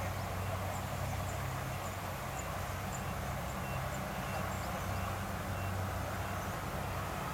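Kubota DC60 combine harvester running steadily as it cuts and threshes rice: a constant low engine hum under a broad mechanical rush.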